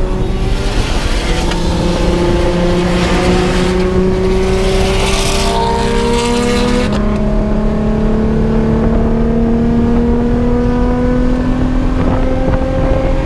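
Nissan 350Z's V6 pulling hard at freeway speed, its pitch climbing steadily under full acceleration. About seven seconds in the pitch drops and starts climbing again, as at a gear change, and a loud hiss heard until then stops.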